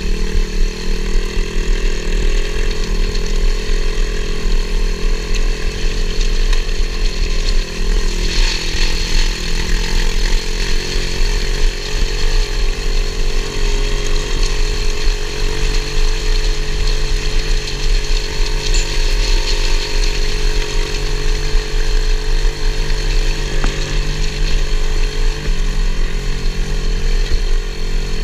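A 125cc single-cylinder four-stroke pit bike engine in a mini three-wheeler running at a steady, fairly even throttle while riding.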